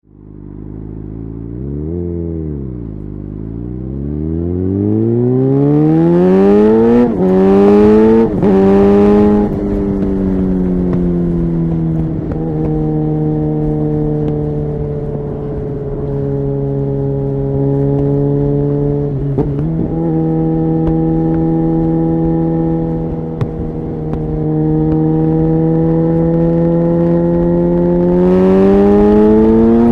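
2009 Suzuki GSX-R 750's inline-four engine through a Yoshimura exhaust: a quick rev about two seconds in, then accelerating with rising pitch and quick upshifts, each a sudden drop in pitch, around seven to nine seconds. It then holds a steady pitch with a couple more shifts and climbs again near the end.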